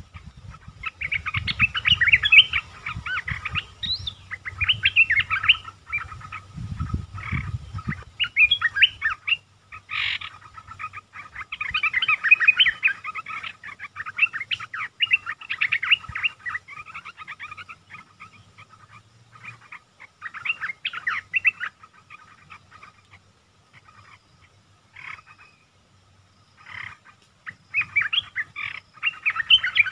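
Olive-winged bulbuls singing in repeated bursts of rapid, chattering notes, each a second or two long with short pauses between. This is a caged decoy bulbul calling to draw in a wild one. A low rumble runs under the first several seconds.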